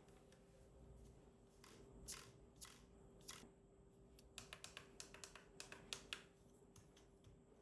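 Faint, scattered clicks and light taps of hands handling the packaging and plastic parts of an RC truck being unboxed, more frequent from about the middle on, over a faint steady hum.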